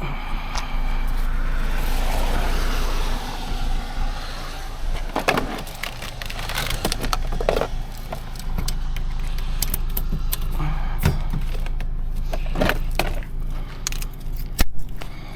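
Metal clinks and knocks from tire-changing tools and parts, over a steady low hum, with a hissing noise in the first few seconds.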